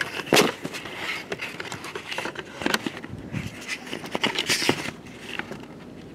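Handling noise from a camera being taken off its mount: irregular clicks, knocks and rustling close to the microphone, settling into a quieter steady hiss about five seconds in.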